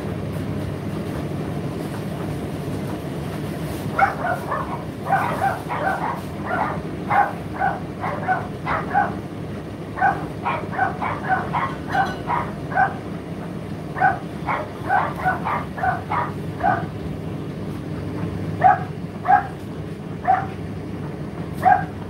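Indesit IDC8T3 condenser tumble dryer running with a steady low hum. From about four seconds in, short, high-pitched yaps come over it in quick, irregular runs, and these are louder than the dryer.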